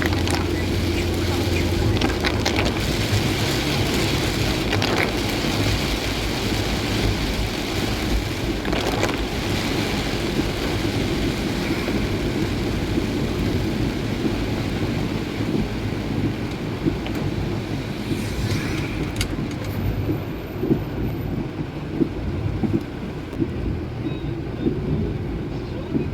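Heavy rain hissing on a moving vehicle over steady road and engine noise. The rain hiss thins about two-thirds of the way through, and a few short knocks stand out near the end.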